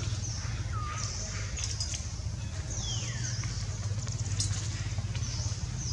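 Outdoor ambience: a steady low hum under short high chirps that repeat about once a second, with a short falling squeak about three seconds in.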